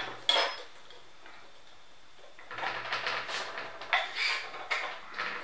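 Small metal clicks and scrapes of a beer keg fitting being handled as its rubber seal is fitted back on, the valve spring held compressed with a screwdriver. One click just after the start, a quiet pause, then a run of clicks and scrapes over the last three seconds.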